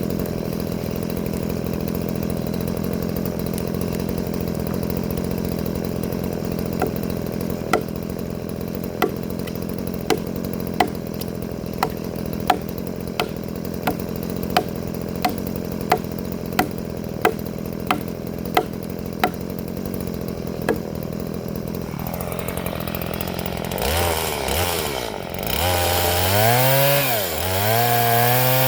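Chainsaw cutting coconut wood into planks. It runs at a steady note for most of the clip, with sharp ticks about every 0.7 seconds through the middle stretch. Near the end it gets louder and its pitch repeatedly drops and climbs again.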